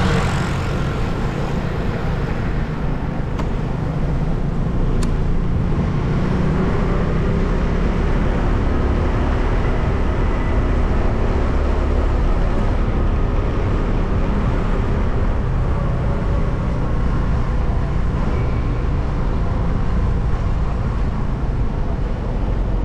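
Steady low rumble of a motor vehicle driving, with even road noise and no breaks.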